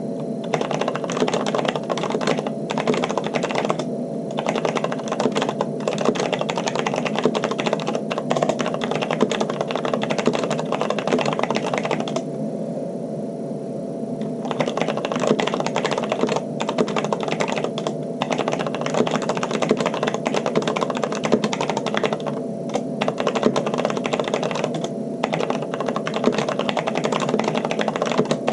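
Continuous fast typing on a Corsair K70 LUX RGB mechanical keyboard with stock, unlubricated linear Cherry MX Red switches and thick double-shot PBT keycaps, set on a microfiber cloth. The key clacks pause briefly about halfway through, then resume.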